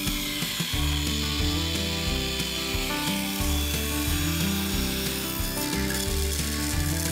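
Table saw running and ripping a thin wooden slat from a board along the fence, heard over background music with a steady, stepping bass line.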